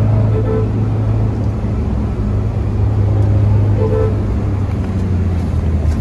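Turbocharged diesel engine of a stage 2 remapped Isuzu D-Max V-Cross pickup running under way, a loud steady low drone with road noise.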